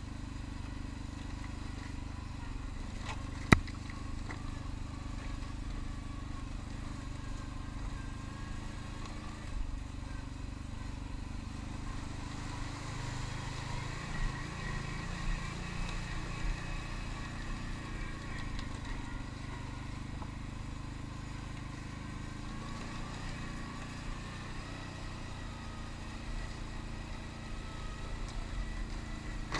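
ATV engine running steadily at low trail speed, with small knocks from the machine over rough ground. A single sharp click about three and a half seconds in is the loudest sound.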